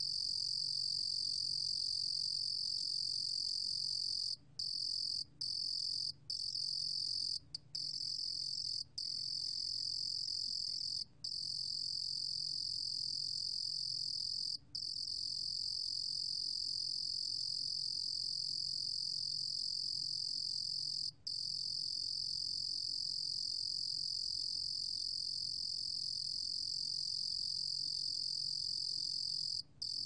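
A Rurugom cricket (루루곰귀뚜라미) singing at 28 °C: a continuous high-pitched trill, broken by a handful of very short pauses in the first half and a couple later on.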